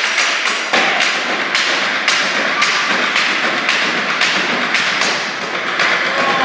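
Stomp-style percussion: several performers beating a large wooden crate in unison, with sharp wooden knocks in a steady beat of about two a second.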